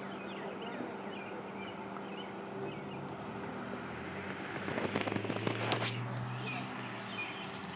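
Outdoor street ambience: a steady low hum, with a burst of sharp crackling clicks about five seconds in.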